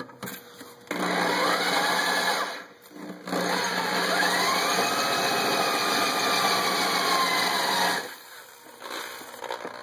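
Corded electric hand drill running a black oxide bit into a stainless steel flat bar, the bit freshly cooled in water. It runs briefly about a second in, stops for a moment, then runs again for about five seconds with its whine rising and then falling in pitch, and stops near the end.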